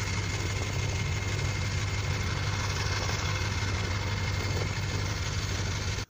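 Diesel engine of a Doosan DX225LCA tracked excavator running steadily at idle, a constant low hum with a hiss over it.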